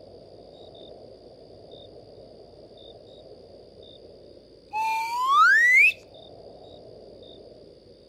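Cartoon sound effect: a loud whistle gliding upward in pitch for about a second, about five seconds in. Behind it runs a steady forest-night ambience with faint short chirps about once a second.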